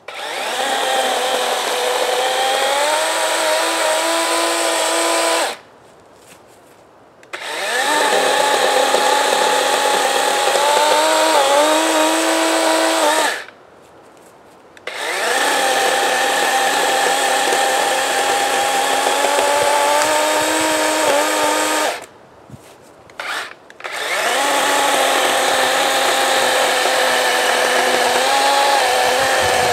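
DeWalt 20-volt battery chainsaw cutting up a downed tree's limbs. It runs in four long bursts of electric motor and chain whine, with short pauses where the trigger is released. The pitch sags a little now and then under load.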